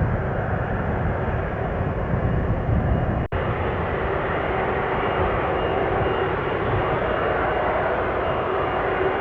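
Airbus A330-300 freighter's twin jet engines running as it taxis: a steady rumble with a faint whine. The sound cuts out for an instant about three seconds in.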